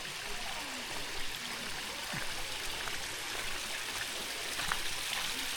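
Creek water rushing steadily over rocks in a shallow stream.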